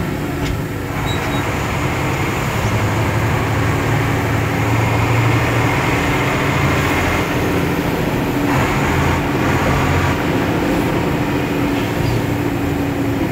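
Fire truck's engine running steadily as it drives, heard from inside the cab: a low drone over road noise.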